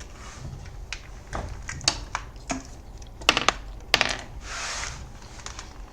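Irregular clicking of computer keys, several sharp clicks standing out from softer ones, with a short hiss about four and a half seconds in.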